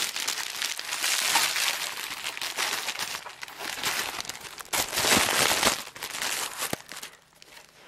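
Plastic bubble wrap crinkling and crackling as it is handled and pulled open, in irregular bursts that die down near the end.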